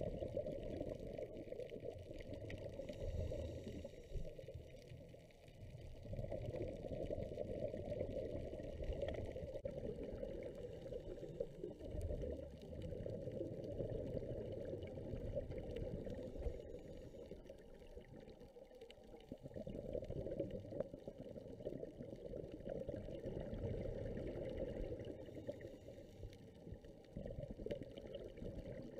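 Muffled water noise heard underwater through a dive camera's waterproof housing, with the bubbling of a scuba diver's exhaled air. It swells and drops every several seconds.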